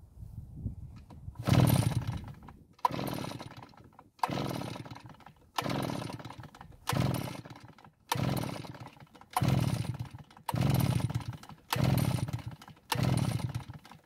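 Recoil pull-starter of a RedMax EBZ8500 backpack blower's two-stroke engine being yanked about ten times, a little over once a second. Each pull is a sudden whir of the rope and the engine turning over that quickly dies away. The engine never fires: a no-start.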